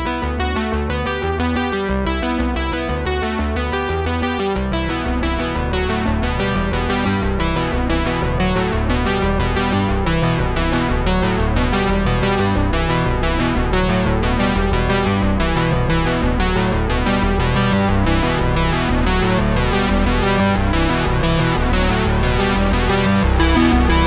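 Background music: electronic keyboard and synthesizer with a steady beat, growing slightly louder.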